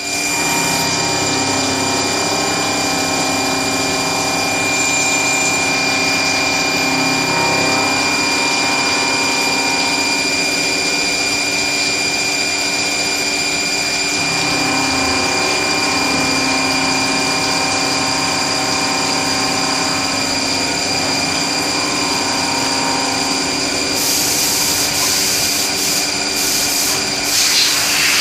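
Machine tool with a rotary axis machining a part: a steady run with a whine of several fixed pitches over a dense mechanical hum. Near the end a high hiss joins in.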